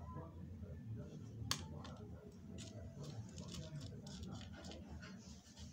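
Small rough corundum crystals clicking against each other and the plastic surface as fingers pick through them: one sharp click about a second and a half in, then a run of fainter ticks.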